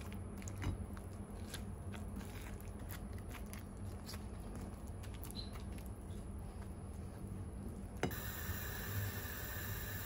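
A spoon mixing a chunky potato fritter batter of diced potato, onion, egg and flour in a bowl, with irregular light clicks and crunches. About eight seconds in there is a sharp click, and a steady hiss takes over.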